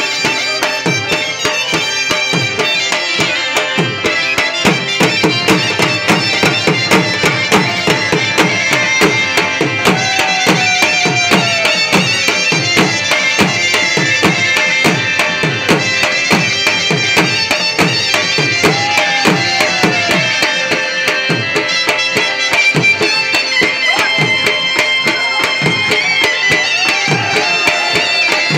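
Pashto saaz matam music: a drum beaten a few strokes a second, its pitch dropping on each stroke, under a high melody held on long notes.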